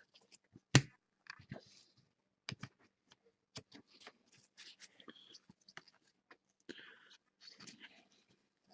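Trading cards being handled and slid against one another: scattered quiet clicks and soft rustles, with one sharper tap about a second in.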